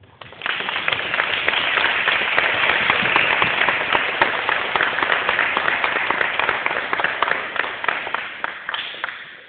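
Audience applauding: many hands clapping together. It starts suddenly about half a second in and dies away near the end.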